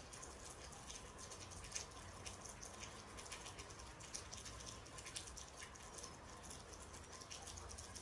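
Faint patter of light raindrops: many small, irregular ticks.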